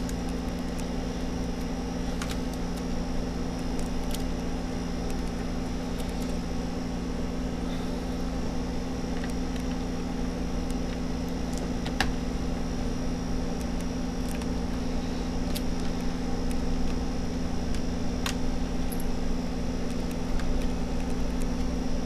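Steady background hum, with a few faint, scattered clicks and ticks as fingers work the LCD ribbon-cable connector and its adhesive on a laptop motherboard.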